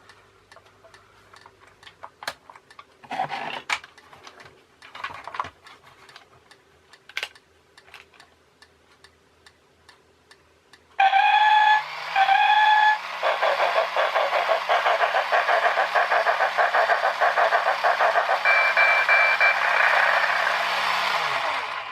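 Quiet clicks and handling of a battery toy train, then its electronic sound effect: two loud one-second whistle toots, followed by a steady rhythmic steam-train chuffing over the hum of the small drive motor, with a brief higher whistle note near the end; it stops just before the end.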